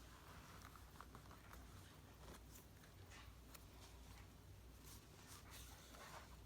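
Near silence: faint room tone with a few soft ticks and rustles of paper being handled.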